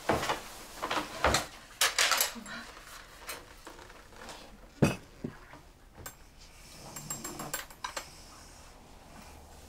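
Bowls and dishes clinking and clattering on a small low dining table as it is carried in and set down on the floor, with a series of sharp knocks, the heaviest about five seconds in.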